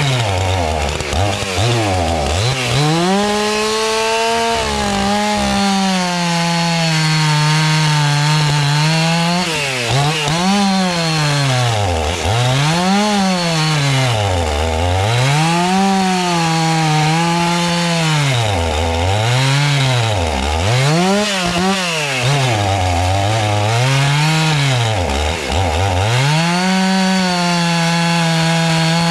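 Old two-stroke chainsaw of about 80 cc running and being revved: the engine climbs to full revs and holds there, then is throttled down and up again about ten times, before holding high once more near the end. The owner says this old saw has a spark problem and needs tuning.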